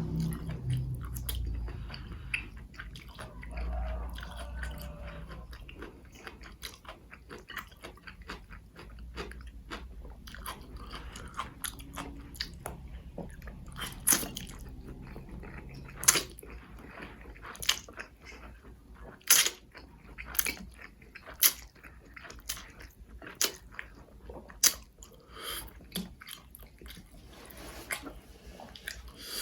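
Close-miked chewing of spicy Korean instant noodles, with irregular wet mouth smacks and clicks that grow louder and sharper in the second half.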